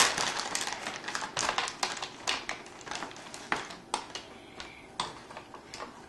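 A plastic bag crinkling briefly, then chocolate candy melts clicking one at a time into the plastic melting tray of a toy chocolate maker: irregular small clicks, a few a second, growing fainter.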